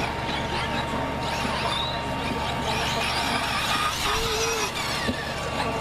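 1/10-scale electric 4WD RC buggies racing on dirt, their motors whining up and down in pitch as they accelerate and slow through the corners.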